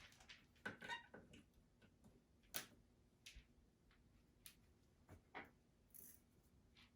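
Faint, scattered clicks and light knocks of handling, with no vacuum motor running: the vacuum cleaner has not started, its switch not in the on position.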